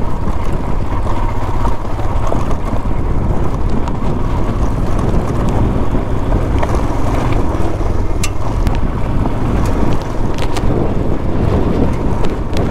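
Royal Enfield Himalayan's single-cylinder engine running as the motorcycle is ridden off-road, with wind buffeting the microphone. A few sharp clicks and knocks come through.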